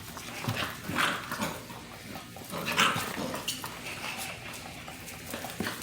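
Basset hound puppies playing, making small dog vocal sounds amid light scuffling and clicks, with a few louder bursts about a second and three seconds in.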